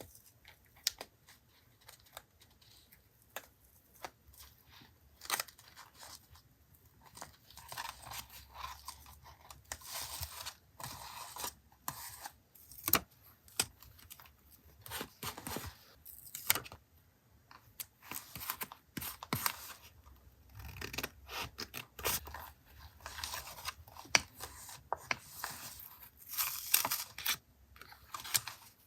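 Paper crafting sounds: scissors snipping and paper being torn and handled, in irregular short rustles with sharp little clicks.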